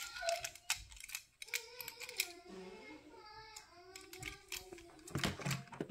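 Die-cast toy cars clicking and clattering against a plastic carrying case as they are handled, with a louder clatter about five seconds in, over a young child's high voice vocalising.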